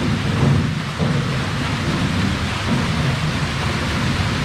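Water-powered grist mill running: a steady, dense rumble and rush from the water-driven wheel, line shaft and belts.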